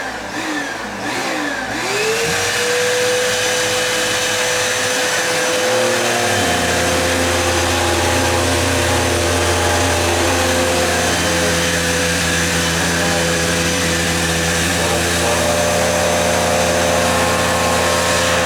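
Vacuum cleaner motor running: its whine wavers up and down for the first couple of seconds, then holds a steady pitch, and a deeper hum joins about six seconds in.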